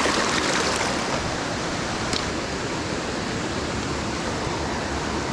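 Mountain stream rushing over rocks: a steady, even hiss of running water.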